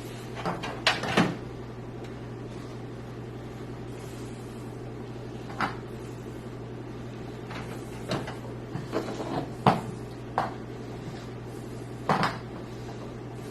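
Irregular light clicks and knocks of computer parts and tools being handled while a motherboard is fitted into a PC case, over a steady low hum. A cluster of knocks comes just after the start, then scattered single ones.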